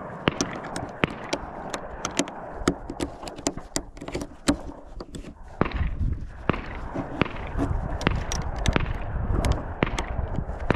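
Irregular metallic clicks of .308 cartridges being pressed one at a time into a Savage Axis rifle's detachable box magazine, brass clicking against brass and the magazine lips. A low rumble sets in about halfway through.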